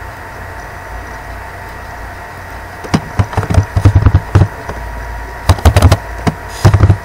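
Computer keyboard keys typed in three quick bursts of clicks, starting about three seconds in, over a steady background hum.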